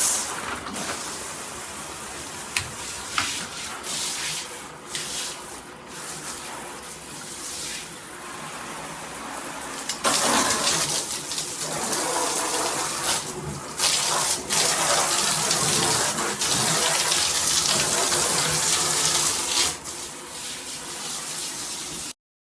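Water spraying from a shower head in a steady rush, which gets louder about halfway through, drops back near the end, then cuts off abruptly.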